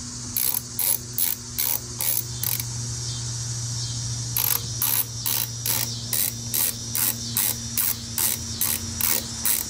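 Hand ratchet with a 7 mm socket clicking at about three clicks a second while a part is screwed into a motorcycle carburetor. It pauses for about two seconds partway through, then clicks on as the part is run in snug.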